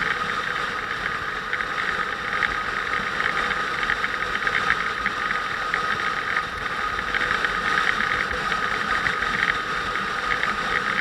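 Motorcycle engine running steadily on the move, with a steady high whine and a fast patter of small ticks over it.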